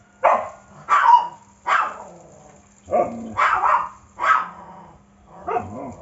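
A dog barking about seven times at uneven intervals.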